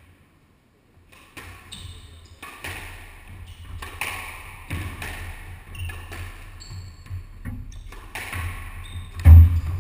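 Squash rally: after a moment of quiet, the rubber ball smacks off rackets and the court walls again and again at an irregular pace, starting about a second and a half in. A loud low thud comes near the end.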